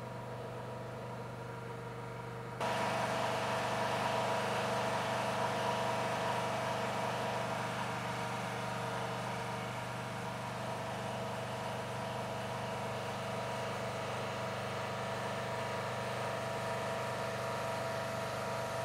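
Engine-driven generator running steadily with a constant hum; about two and a half seconds in it becomes louder and noisier and stays that way.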